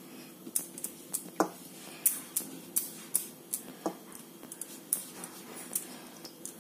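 A hand patting and pressing a round of wet tandoori roti dough on a wooden board: light, irregular sticky taps and clicks, about two a second, with two duller knocks.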